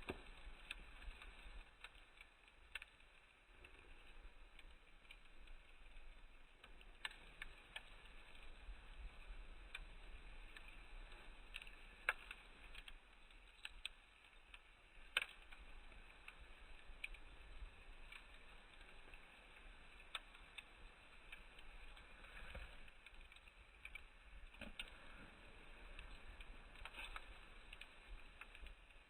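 Wood campfire crackling faintly, with irregular small pops and a couple of louder snaps.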